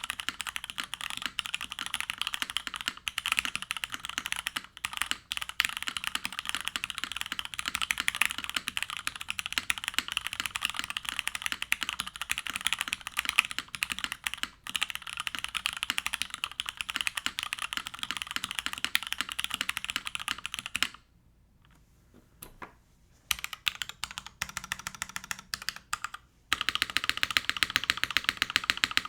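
Typing on a Plywrks Spyder TKL mechanical keyboard with lubed, filmed vintage Cherry MX Black linear switches, a carbon fiber plate in an O-ring mount, and GMK keycaps: a quick, steady stream of keystroke clacks. About three-quarters of the way through the typing stops for two seconds, resumes with slower scattered keystrokes, then picks up to full speed again.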